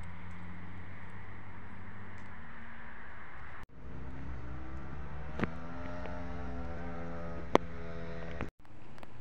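An engine running steadily. After a short break it rises in pitch about four seconds in and then holds steady, with two sharp clicks. The sound cuts out briefly twice.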